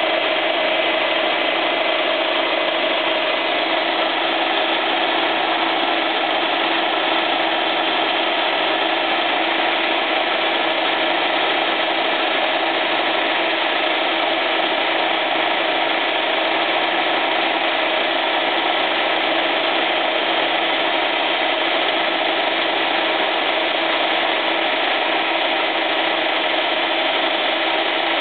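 Milling machine running with its end mill cutting into the ring-gear teeth of a flywheel: a steady, unbroken machining noise with a constant hum under it.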